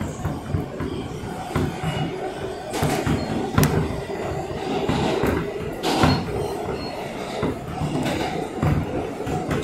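Subway train running through a tunnel, heard from inside the car: a steady low rumble with irregular sharp clacks and knocks of the wheels over the track.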